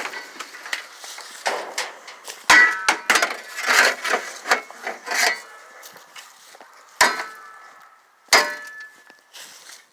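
A shovel striking an old, rusty microwave's sheet-metal shell: several hard blows with clattering between them, each blow ringing briefly.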